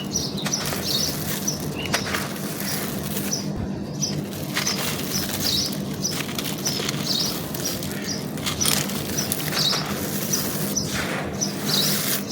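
Dry, brittle chunks of charcoal and baked clay being crushed and crumbled by hand, a steady run of irregular crunches and crackles. A short high chirp repeats about once or twice a second in the background.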